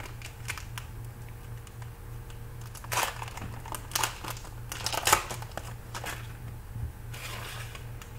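Crinkling and crackling of a foil trading-card pack wrapper and cards being handled, in scattered short bursts about a second apart, over a steady low hum.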